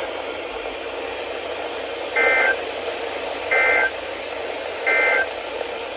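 Emergency Alert System end-of-message data bursts over weather radio hiss: three identical short digital tone bursts, about a second and a half apart, the code that marks the end of the alert.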